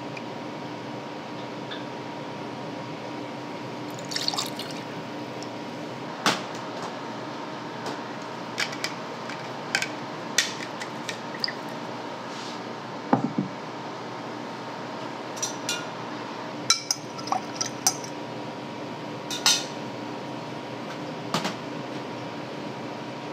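Bar tools and glassware at work while a cocktail is mixed: gin and lime juice poured into a steel jigger and shaker tin, with a dozen or so sharp clinks of metal and glass spread through. A steady hum runs underneath.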